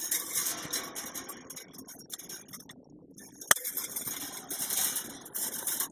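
Fence wire being handled and worked with pliers: metal scraping and clinking, with a sharp click at the start and a louder one about three and a half seconds in.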